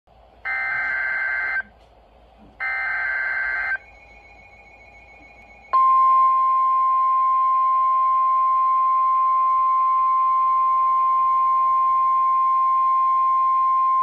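NOAA Weather Radio alert sounding from a Midland S.A.M.E. weather alert radio's speaker: two short buzzy bursts of SAME digital header data, about a second each, then a long, loud, steady single-pitch warning alarm tone starting about six seconds in. Together they signal an incoming severe weather warning.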